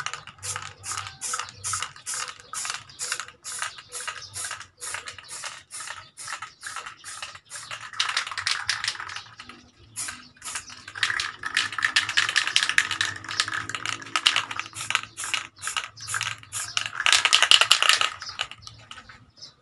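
Aerosol can of high-temperature spray paint hissing in short, quick bursts, about three a second, with a longer spray near the end, as a first coat goes onto a motorcycle muffler.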